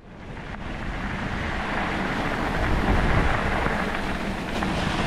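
Wind buffeting the microphone: a steady rumbling rush that builds over the first second.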